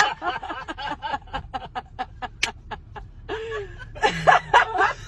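People laughing: a quick run of short snickers for the first few seconds, then louder laughter about four seconds in.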